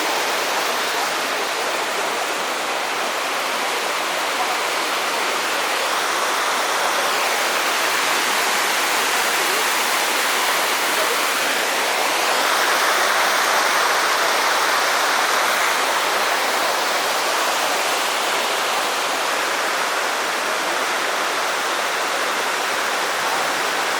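Waterfall pouring steadily: a constant, dense rush of falling water, a little louder midway through.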